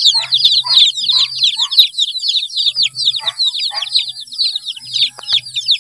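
A brood of Rhode Island Red and Barred Plymouth Rock chicks peeping continuously: many short, high, falling chirps overlapping one another.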